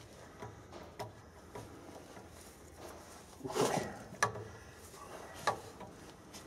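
Faint, scattered metal clicks and clinks of a socket and long bar being worked on a tight nut on a Sentinel steam wagon engine, with one louder scuffing knock about three and a half seconds in.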